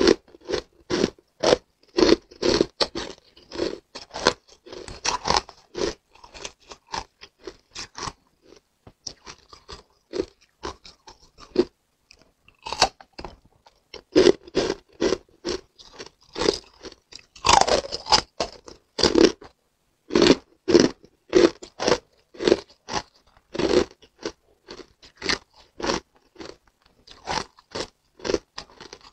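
Pieces of hard frozen coloured ice being bitten and chewed close to the microphone: loud, sharp crunches in quick irregular runs, thinning out to a sparse stretch about halfway through.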